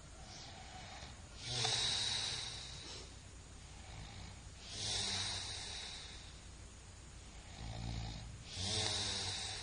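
A sleeping person snoring: three snoring breaths about three seconds apart, each a low rattle with a hiss over it.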